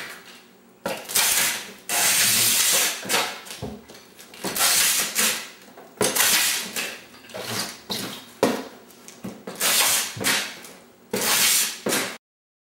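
Packing tape being pulled off its roll and run over a cardboard carton to seal it: a series of noisy tearing strokes, each about a second long, with short pauses between them, until the sound cuts off suddenly near the end.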